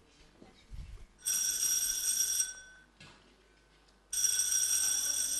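Desk telephone bell ringing twice, each ring lasting just over a second, with a pause of under two seconds between them.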